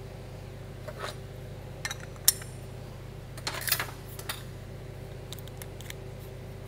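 Metal clinks and light clicks as a brass bulkhead fitting, its steel flange plate and wrenches are handled. The sharpest clink comes about two seconds in, and a quick cluster of clinks follows a little past the middle.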